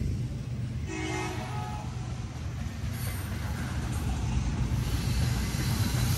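Diesel locomotives of an approaching freight train, a steady low drone that slowly grows louder, with a short horn blast about a second in.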